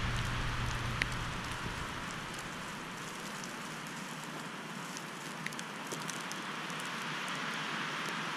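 Wind-driven snow falling: a steady, even hiss. A low gust rumble on the microphone dies away over the first couple of seconds, and a few faint ticks sound, about a second in and again past the middle.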